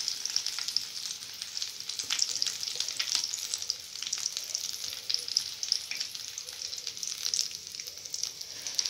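Hot oil sizzling and crackling in a black iron kadai around deep-fried, flour-coated chicken pieces as they are lifted out on a slotted skimmer to drain, with a dense run of small pops throughout.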